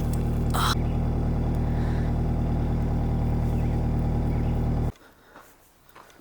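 Car engine idling steadily, a low even hum, which cuts off suddenly about five seconds in.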